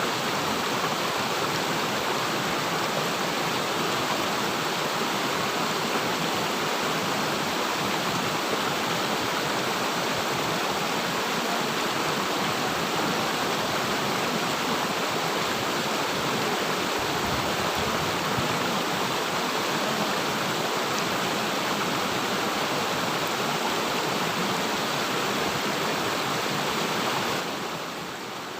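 River water rushing steadily over the streambed, with a short dip in level near the end.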